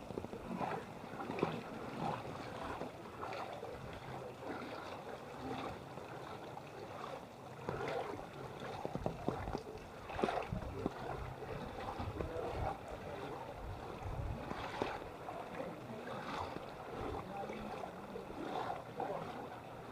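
Flood water splashing and sloshing around legs wading through a flooded street, in an irregular run of splashes.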